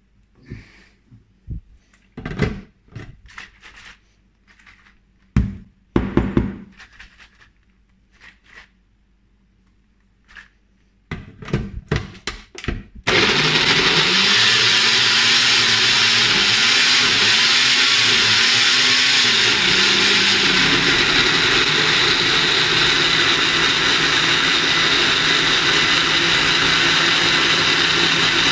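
Clicks and knocks of a plastic blender cup and its blade base being handled and set on the motor base. About halfway through, a Sencor Nutri Blend 1000 W personal blender starts suddenly and runs steadily and loudly, its pitch wavering up and down for the first several seconds as it blends.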